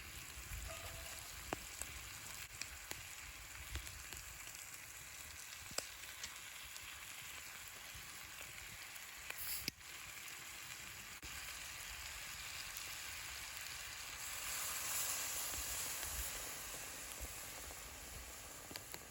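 Food sizzling in a cast-iron pan, a steady hiss with scattered small pops, swelling louder and brighter about fifteen seconds in.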